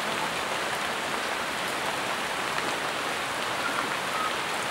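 Steady rain falling on jungle foliage, an even hiss that does not change.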